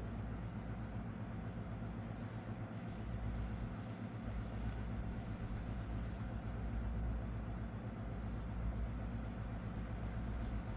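Steady low rumble with a constant low hum, without clear strokes or changes.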